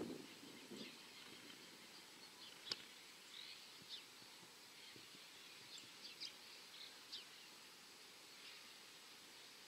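Near silence in quiet countryside: faint, scattered chirps of small birds over a soft background hush, with one sharp click about three seconds in.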